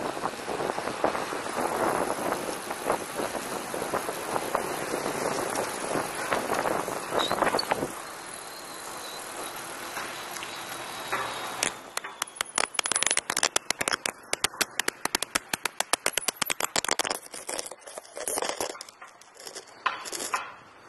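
Wind and road noise from a camera riding along on a moving bicycle. About halfway through, a fast, irregular run of clicks and rattles starts as the fallen camera stick drags and bounces on the road, thinning out as the bike comes to a stop.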